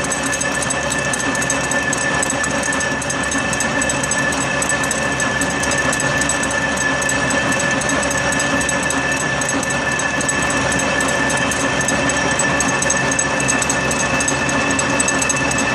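Key seat miller attachment milling an internal keyway in a mild-steel blind bore in a single pass: a steady mechanical running and cutting sound with a constant high whine.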